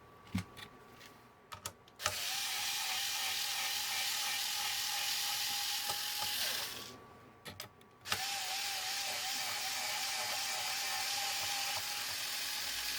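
Small electric screwdriver motor running in two steady spells of about four to five seconds each, with a short pause and a few clicks between them, driving out case screws.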